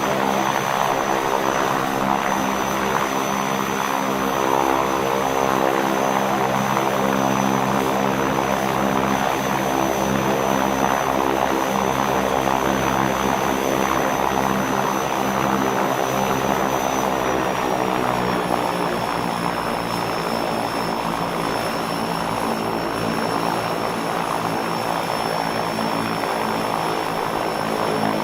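Piston engine of a WWI Curtiss JN-4 Jenny biplane running steadily with its propeller turning, at light revs. About seventeen seconds in, the engine speed eases down a little and settles at a slightly lower, steady note.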